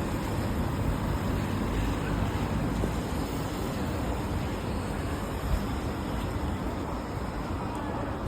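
Steady city street noise: a low traffic rumble under an even hiss.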